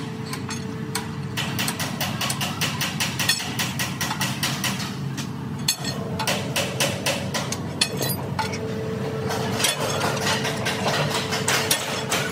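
Rapid, irregular knocking, several knocks a second, over a low steady din, with a steady tone that comes and goes.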